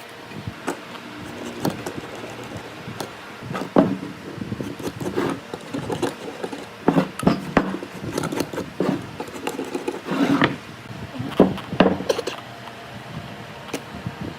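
Irregular knocks, taps and rubbing of wood being handled, with the loudest knocks about four seconds in and again in clusters later on.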